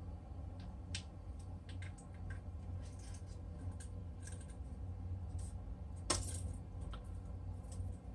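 Scattered small clicks and taps from handling a Daiwa 800MJ Megatwin electric fishing reel, its handle, lever and buttons being worked, with one louder click about six seconds in.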